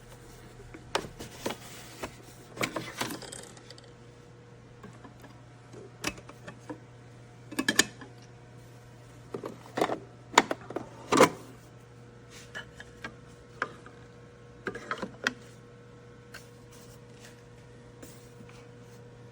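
Irregular clicks, taps and knocks of objects being handled, in small clusters with pauses between, over a steady low hum.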